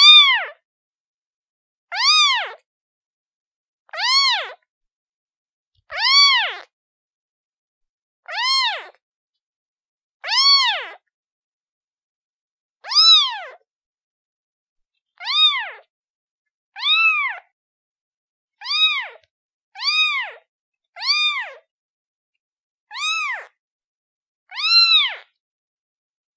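Kitten meowing over and over, a short call about every one to two seconds, each meow rising and then falling in pitch.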